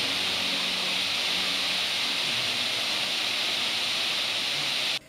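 Steady rushing roar of a tall waterfall pouring into a pool, which cuts off suddenly near the end.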